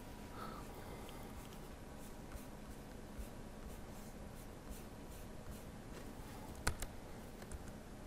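Faint scattered clicks of a laptop keyboard and mouse being worked, with one sharper click about two-thirds of the way through, over quiet room tone.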